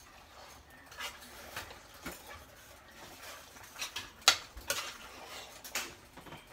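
A spoon stirring in a cooking pot, clinking and scraping against its sides in a loose scatter of sharp clinks, the loudest a little past the middle.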